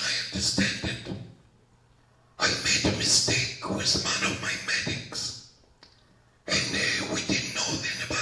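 A man talking into a handheld microphone held close to his mouth, in phrases broken by two short pauses.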